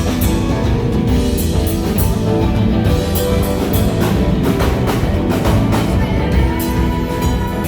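Rock band playing live on stage during a sound check: a drum kit with steady hits and a guitar over a full band sound.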